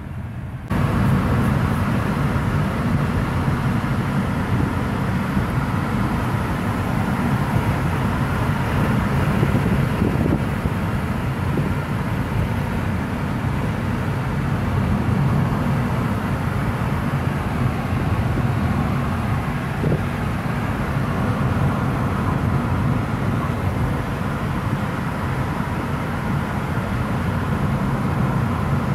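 Steady road and engine noise heard inside a moving car's cabin, a low rumble with a hiss above it, getting suddenly louder just under a second in.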